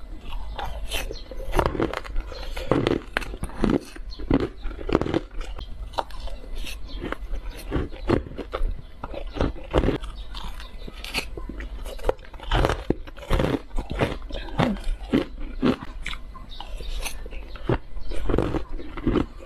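Close-miked biting and chewing of shaved ice and hard coloured ice chunks, many sharp crunches in quick, irregular succession.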